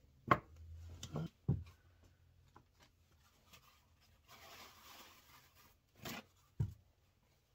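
Handling noises at a workbench: a sharp knock as the small carburetor is set down, a few lighter clunks, then a papery rustle and tear about four seconds in as a blue paper shop towel is pulled off its roll, and two more knocks near the end.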